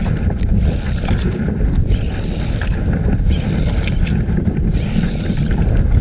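Steady, loud wind rumble on the microphone aboard a small outrigger fishing boat at sea, with a faint wash of water around the hull.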